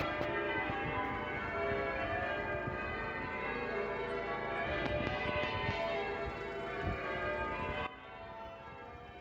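Church bells pealing, many overlapping ringing strokes. About eight seconds in the sound drops off suddenly to a quieter level.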